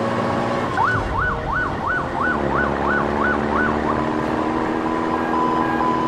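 Police car siren sound effect with a fast up-and-down wail, about two to three sweeps a second, over a steady engine drone. About four seconds in, the sweeping stops and a single held tone continues.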